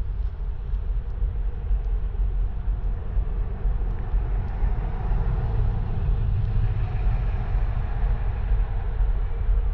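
Steady low rumble with a rushing noise aboard the coastal passenger ship MS Nordkapp under way, growing a little louder about four seconds in.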